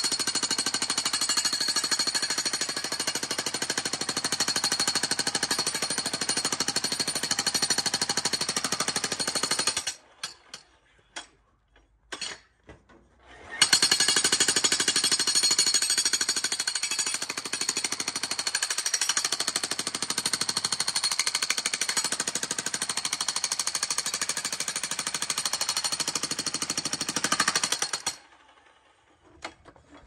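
Electric jackhammer hammering rapidly as its chisel breaks out earth and rock in a trench. It stops about ten seconds in, leaving a few scattered knocks, starts again about three seconds later and runs until shortly before the end.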